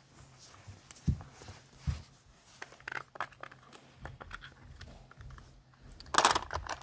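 Handling noise from a small object held close to the microphone: scattered light clicks and taps, two soft thumps in the first two seconds, and a louder rustle about six seconds in.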